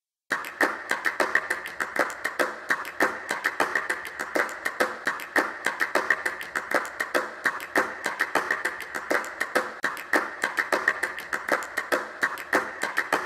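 A rapid, irregular series of sharp taps or claps, several a second, starting about a third of a second in.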